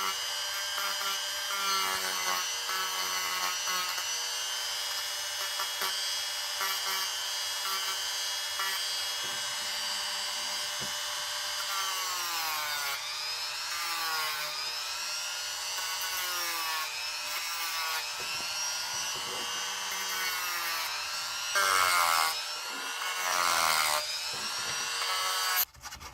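Dremel rotary tool running at high speed and carving into soft wood, its whine sagging in pitch and recovering each time the bit is pressed into the wood. It gets louder twice near the end, then cuts off.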